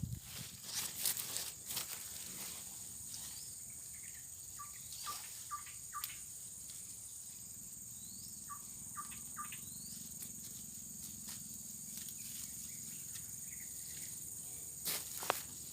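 Swamp ambience: a steady high-pitched drone of insects, with a bird giving two short runs of quick chirps, about five and nine seconds in.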